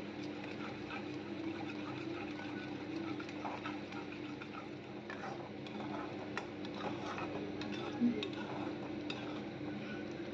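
A ladle stirring and scraping thick besan halwa in a kadhai, with soft clicks of the ladle against the pan and a faint sizzle, as it is stirred to keep the halwa free of lumps. One louder knock about 8 seconds in, over a steady low hum.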